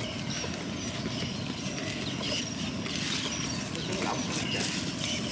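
Small animals calling: short, high chirps repeated many times over a steady low noise.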